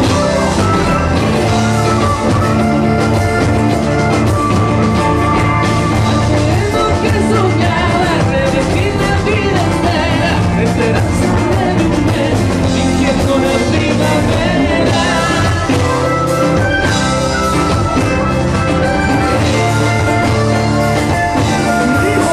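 Live band music with a man singing into a microphone over amplified nylon-string guitar and the rest of the band, loud and continuous.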